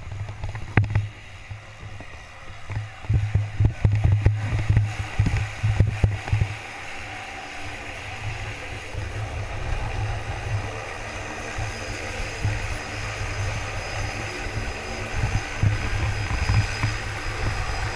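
Light aircraft engine running steadily beside the jump plane, with gusty wind buffeting the microphone.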